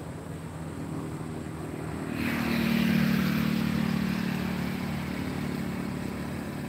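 An engine running steadily with a low hum. About two seconds in it grows louder and a strong rushing noise joins it, peaking a second later and slowly fading.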